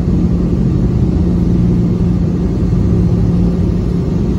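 Steady low rumble inside the cabin of a Boeing 717 rolling down the runway after touchdown, the engines and wheels blending into one noise with a steady hum through it.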